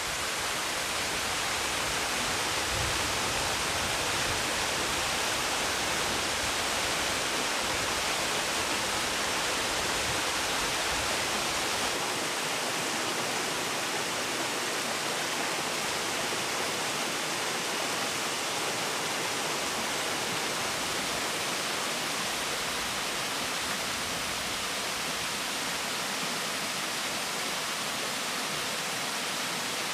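Thermal spring water running and splashing over rocks in a small cascade, a steady rushing. The low rumble thins and the level drops slightly about twelve seconds in.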